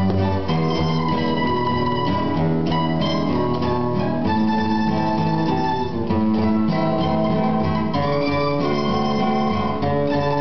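Bandola playing a quick plucked melody of many short notes over sustained low bass notes.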